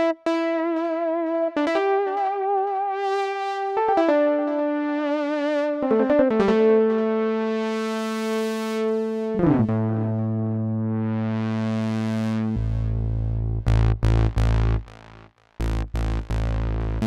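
Nord Modular G2x synthesizer playing single held notes with vibrato that step down in pitch, then glide down into a low note about nine seconds in, with filter sweeps rising and falling. Near the end a deep bass layer enters, chopped by quick rhythmic stutters and a brief dropout.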